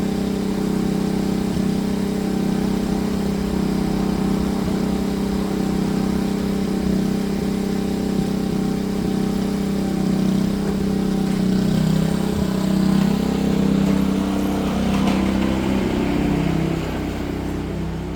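Petrol lawn mower engine running steadily while mowing and picking up leaves, its note wavering a little about two-thirds of the way through and getting quieter near the end.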